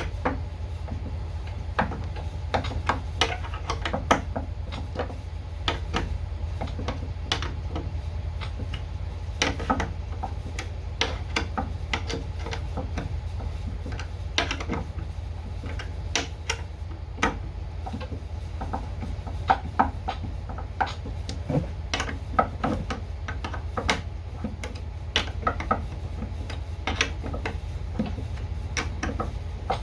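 Steel perimeter bolts being turned in by hand and handled through a piano's plate holes: irregular clicks, taps and scraping of metal against metal and wood, over a steady low hum.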